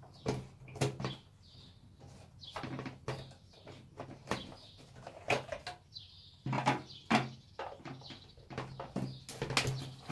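Irregular clicks and knocks of hard plastic as a Rainbow vacuum power nozzle's housing is handled and shifted on a tabletop.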